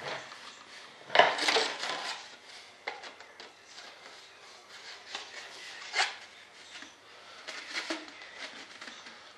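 Duct tubes for an RC jet being handled and shifted on a workbench: scattered knocks, clicks and scraping rubs, the loudest a scrape about a second in.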